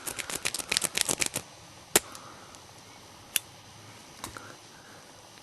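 Metal lock-picking tools working in a small scooter ignition lock cylinder: a fast run of light metallic clicks for about a second and a half, then three single sharp clicks spaced about a second apart.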